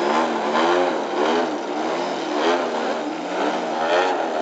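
Radio-controlled aerobatic model airplane engines and propellers, hovering nose-up, with the pitch rising and falling about twice a second as the throttle is worked to hold the hover.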